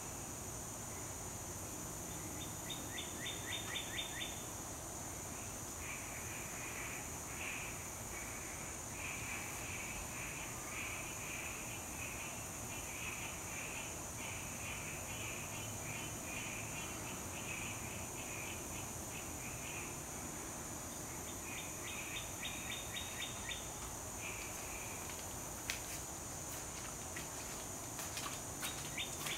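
Outdoor ambience: a steady high-pitched insect drone, with a bird calling in quick runs of repeated chirps several times and a softer chattering call in between. A few faint clicks come near the end.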